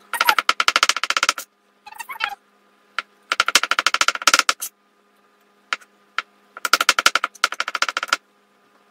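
Kitchen knife rapidly chopping boiled eggs on a plastic cutting board: three quick runs of sharp knocks, about ten a second, with short pauses between.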